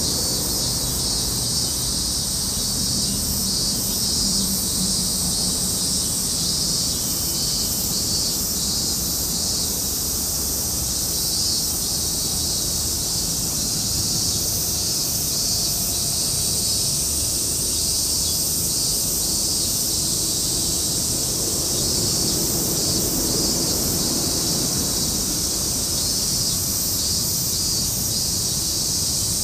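Outdoor insect chorus: a steady, high-pitched shrilling with a faint regular pulse, over a low rumble.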